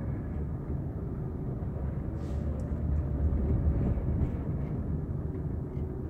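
Steady low rumble of a car's engine and road noise heard from inside the cabin as the car rolls slowly forward.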